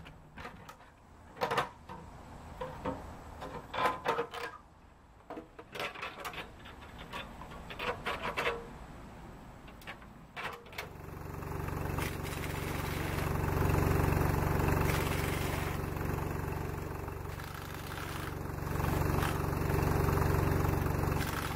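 Hydraulic floor jack being pumped and wheel work: irregular metallic clicks and clanks. About halfway through, a steady motor drone takes over, swelling and easing, louder than the clicking.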